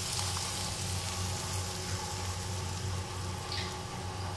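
A steady soft sizzle and hiss from a pot of kadhi on the stove, just topped with a tempering of hot oil, curry leaves and cumin. A low steady hum runs underneath.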